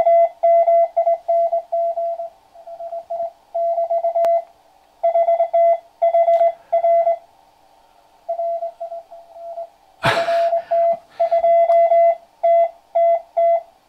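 Morse code (CW) received on a QRP-Labs QCX-Mini 40 m transceiver and played through a small amplified loudspeaker: a single mid-pitched tone keyed on and off in dots and dashes, weaker in a couple of stretches. About ten seconds in there are two short bursts of noise.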